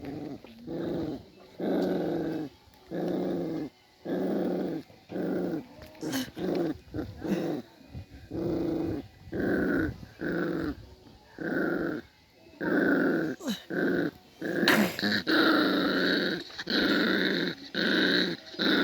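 Puppy growling over its food in a run of short growls, about one a second, guarding the meat and bone it is eating. About two-thirds of the way through the growls grow louder and harsher.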